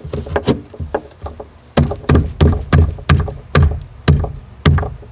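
Repeated dull knocks of hands striking the Goose Gear side cubby's front cover panel to seat it down into its channel: about a dozen thumps at uneven spacing, the loudest from about two seconds in.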